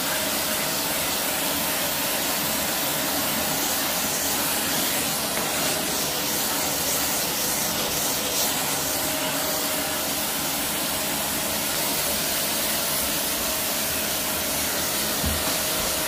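Dyson vacuum cleaner running steadily as it sucks over carpet: a constant rushing hiss of airflow with a steady motor whine.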